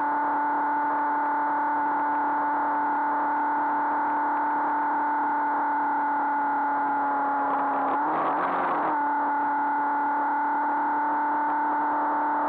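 Steady droning hum of a Honda CBR500R motorcycle cruising, heard through an onboard camera. About eight seconds in, a brief burst of noise with a short dip in pitch.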